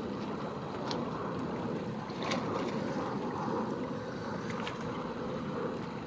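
Steady wind rush on the microphone with water lapping at a small inflatable boat, and a few faint, brief, sharp high sounds over it about one, two and four and a half seconds in.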